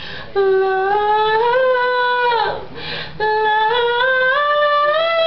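A woman singing unaccompanied, holding two long notes that each slide slightly upward in pitch, with a breath between them.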